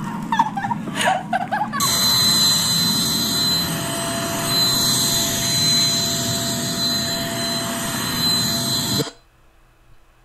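Vacuum cleaner motor running with a steady high whine. It starts suddenly about two seconds in and cuts off abruptly about nine seconds in.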